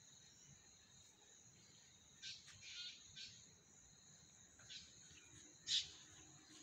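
Faint, steady, high-pitched trill of night insects such as crickets, with a handful of short chirps scattered through; the loudest chirp comes a little under six seconds in.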